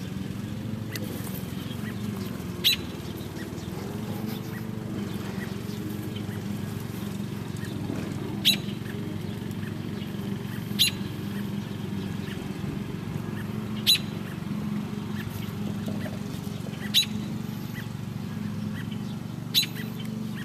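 A bird chirping outdoors: six short, sharp, high chirps a few seconds apart, over a steady low hum.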